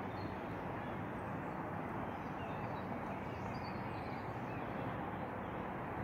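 Steady outdoor background noise with faint bird chirps high above it.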